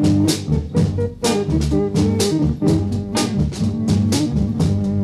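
Background music with a steady drum beat over sustained lower instrument lines.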